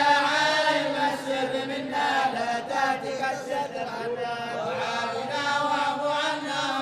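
A large group of men chanting a Sufi devotional qasida in unison, without instruments, holding slow, drawn-out melodic lines.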